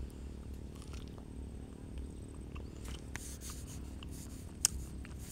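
Biting and chewing a firm green guava: a few short crisp crunches, the sharpest near the end, over a low steady hum.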